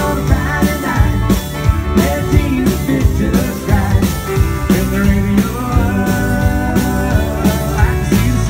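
Live country band playing an instrumental break over the PA: electric guitar lines over drum kit, bass guitar and keyboard, with a steady beat.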